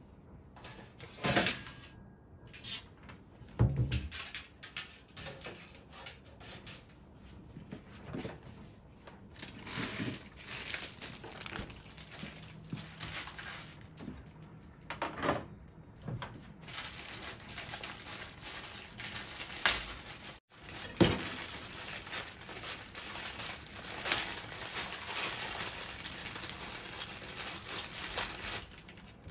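Kitchen handling sounds: a metal grill tray and mesh rack knocking and clattering on a gas stove, with a few sharp knocks, then a plastic bag crinkling and rustling near the end as eggplants are pulled out of it.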